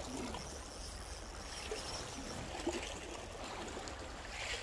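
Sea water lapping and trickling among shoreline rocks, a steady wash with a low rumble beneath it.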